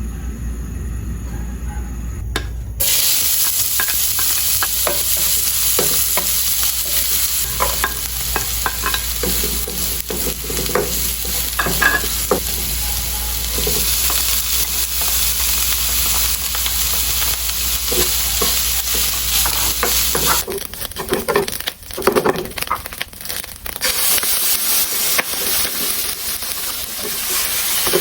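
Food frying in a pan: a dense sizzle starts suddenly about three seconds in, over a low steady hum, with a utensil clicking and scraping against the pan as the food is stirred.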